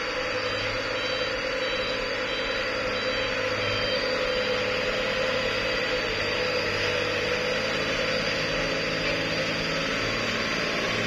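Diesel engine of a Hino truck running steadily at low revs as it pulls up a muddy slope, growing slightly louder as it comes closer.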